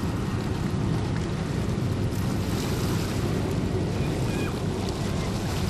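Steady low roar of a Boeing 767-300 airliner's jet engines on final approach, mixed with wind rumbling on the microphone.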